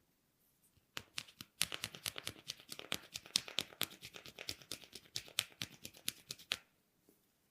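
Hands working the head and hair during a massage, making a fast run of crisp clicks and crackles that starts about a second in and stops sharply near the end.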